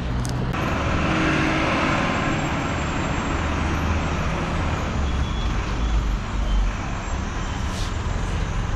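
Steady road traffic noise from a busy junction: a continuous rumble of car and bus engines and tyres.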